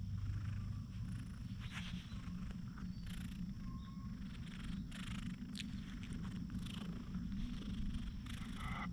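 A cat purring steadily as it is stroked, with soft rustles of a hand moving in its fur.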